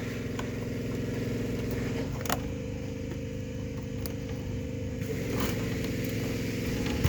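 Steady, low mechanical motor drone with a few sharp clicks, two of them louder, at about a third and three quarters of the way through.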